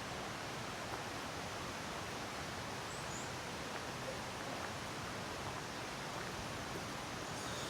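Steady, even rush of a mountain stream flowing, with a faint high chirp about three seconds in.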